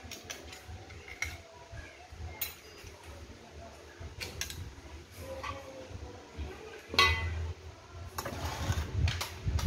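Small metal chainsaw parts clicking and clinking as they are handled, with a louder clatter about seven seconds in and some scraping near the end.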